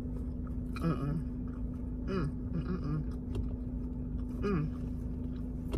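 Someone eating: small clicks of chewing and utensils with a few brief voice sounds, over a steady low hum.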